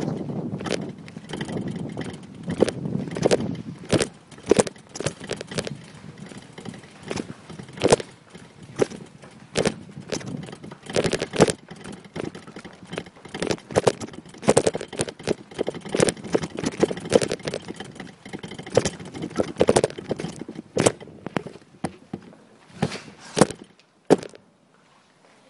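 A run of irregular knocks and clatter over a low rumble, dying away to near silence near the end.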